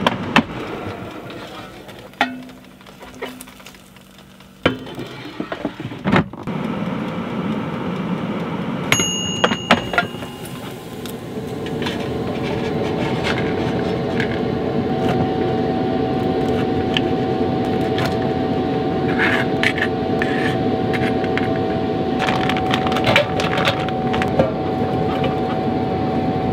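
Knocks and clatter of food and cookware being handled. From about twelve seconds in, the steady whir of a small basket air fryer's fan running, with a faint held tone.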